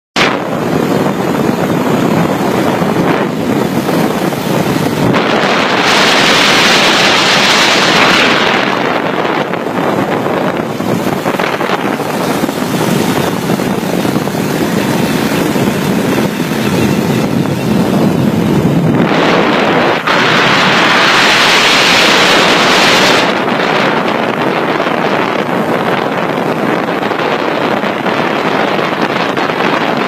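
Wind rushing over a smartphone microphone carried on a moped moving at about 40 mph: a loud, steady rush of noise, harsher and hissier for a few seconds around six seconds in and again around twenty.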